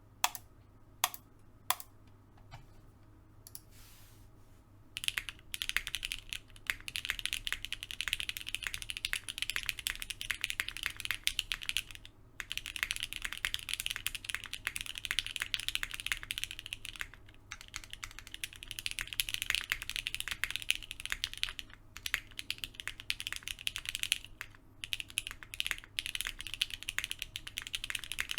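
Mechanical keyboard typing test: a TGR x Monokei Tomo SE with linear Gateron CJ switches on a polycarbonate plate, O-ring mounted with 50A O-rings. A few single keystrokes in the first few seconds, then continuous fast typing from about five seconds in, broken by a few short pauses.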